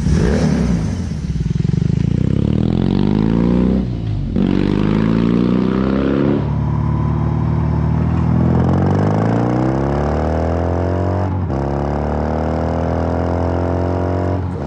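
BMW R18's 1.8-litre two-cylinder boxer engine, heard from the rider's seat, accelerating through the gears. Its pitch climbs steadily and drops at each upshift, about 4, 6.5 and 11 seconds in.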